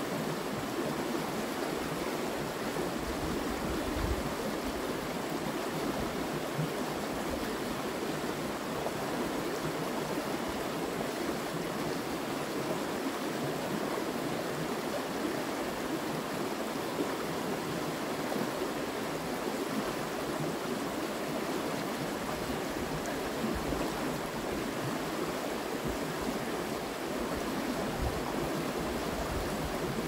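A river running over rocks, making a steady rushing sound.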